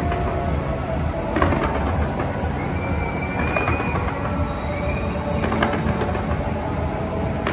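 Fireworks going off in a dense, continuous low rumble of explosions. Sharper bangs stand out about a second and a half in and again near the end. A high whistling tone runs through the middle and rises briefly.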